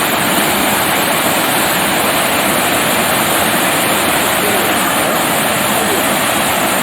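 A waterfall pouring: a steady, loud rush of falling water.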